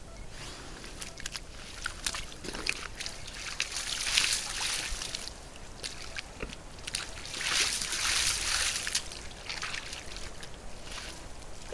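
Red deer in a muddy wallow: wet sloshing and splashing of mud and water in irregular bursts, the strongest about four seconds in and again around eight seconds in.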